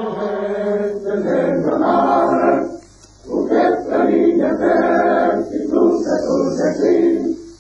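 A choir singing in sustained phrases, breaking off briefly about three seconds in and again near the end.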